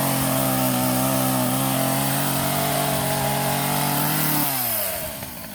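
Two-stroke petrol chainsaw engine running at a steady speed. About four and a half seconds in, its revs fall away and the pitch slides down.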